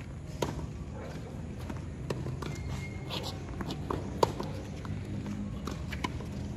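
Tennis doubles rally on an outdoor hard court: a string of sharp pops from the ball being struck by rackets and bouncing on the court, the loudest a crisp racket hit about four seconds in, with players' footsteps scuffing between shots.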